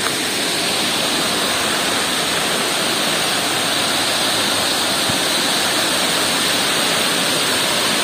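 Waterfall: the steady, even rush of water falling.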